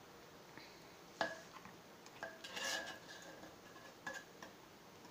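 Knife and fork clinking and scraping against the inside of an earthenware roasting pot while cutting and lifting out the roasted rooster: a sharp clink about a second in, a scrape a little later, and another clink near four seconds.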